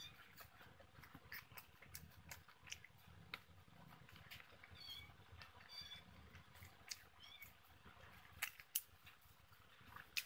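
Quiet close-up eating sounds: chewing and lip smacks, with fingers picking apart fried fish on a banana leaf, making scattered sharp clicks. The loudest clicks come near the end. A few short high-pitched squeaks are heard about halfway through.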